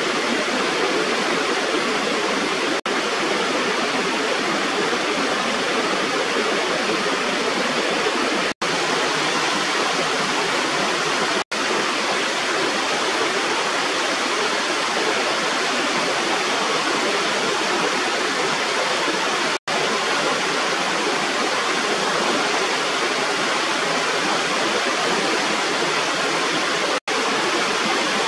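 Small waterfall of water spilling over a rubber irrigation weir: a steady rush of falling water, broken a few times by split-second gaps.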